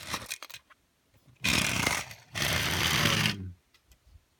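A person making a rough, buzzing engine noise with the mouth, twice, each about a second long. Before it come a few light clicks of plastic toy parts being handled.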